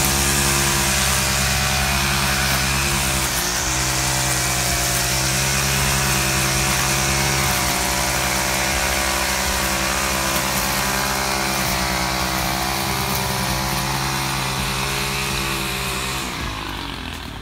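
Small engine of lawn-care power equipment running steadily. Its pitch dips briefly about three seconds in, and it winds down near the end.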